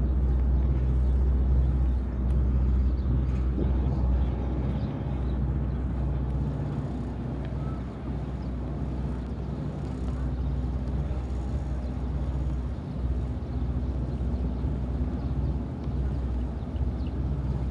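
A motorboat's engine running steadily, a low drone.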